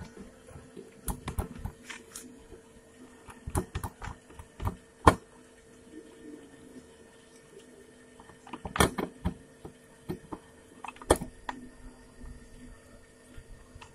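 Irregular metal clicks and knocks from handling the Yamaha RX King's cylinder head as it is pressed and seated on the finned cylinder, the loudest knock about five seconds in and another cluster near nine and eleven seconds, over a faint steady hum.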